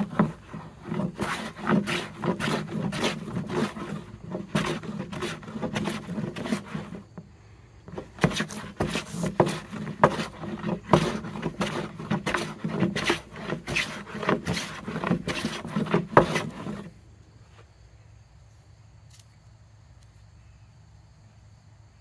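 Hand plane shaving a pine board: a run of short, rhythmic strokes, a brief pause about seven seconds in, then another run that stops about seventeen seconds in.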